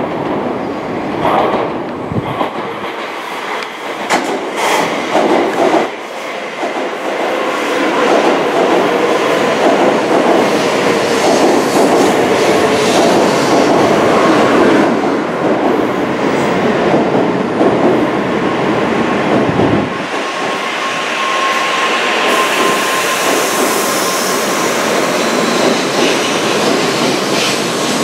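N700-series Tokaido Shinkansen train running into the station along the platform: a steady rushing rumble of wheels and air that grows louder about eight seconds in as the cars pass close by, with a thin whine showing for a few seconds in the later part.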